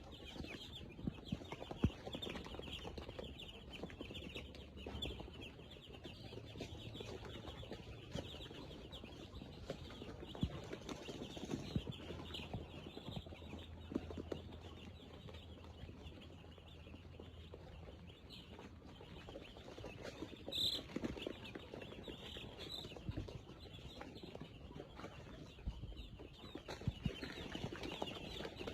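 A flock of chickens clucking and chirping continuously, with many scattered short knocks among the calls and one sharper, higher call about two-thirds of the way through.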